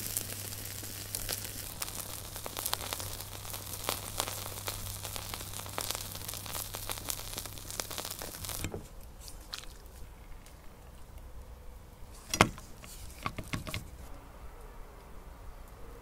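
Crackling from an oak wood fire, thick with small pops, which cuts off suddenly a little past halfway. After that it is quieter, with a few sharp knocks, one loud one about twelve seconds in.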